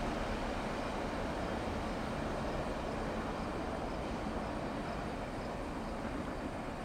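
Double-stack container freight train rolling past: a steady rumble and clatter of steel wheels on rail from the well cars, getting slowly quieter.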